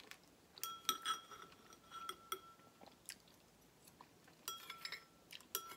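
Metal spoon clinking against a ceramic soup bowl, half a dozen light ringing clinks spaced unevenly, with quiet chewing and eating sounds between.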